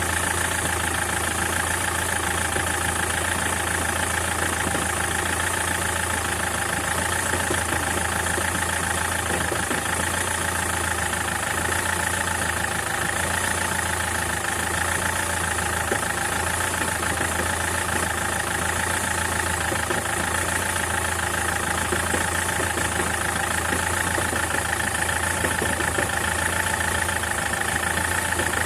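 SsangYong Kyron engine idling steadily with a knock that the owner puts down to a worn flywheel.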